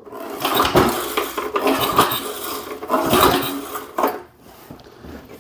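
Metallic clattering and rattling from the Briggs & Stratton engine of an old push mower being cranked over with no fuel in the tank, so it does not fire. The clatter is busiest for about four seconds, then dies down.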